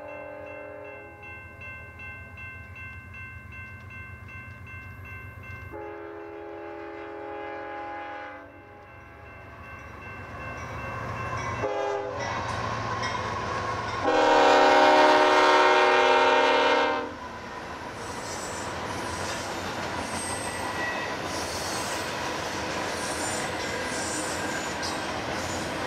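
Union Pacific diesel freight locomotive's multi-note air horn sounding the grade-crossing pattern of long, long, short, long blasts, the last blast the loudest, over the engine's low rumble. After the horn the train rolls past with steady wheel-on-rail noise and clatter.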